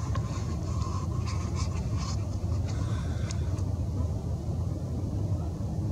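Steady low rumble, with scattered faint clicks and ticks during the first three and a half seconds.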